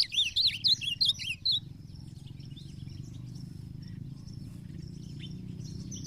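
An ultramarine grosbeak (azulão) sings a rapid, loud warbling phrase of quick sweeping notes that stops about a second and a half in. Faint scattered chirps follow over a steady low hum.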